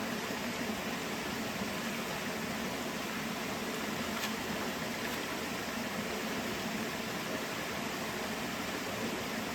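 Steady rush of a mountain stream, an even hiss of flowing water.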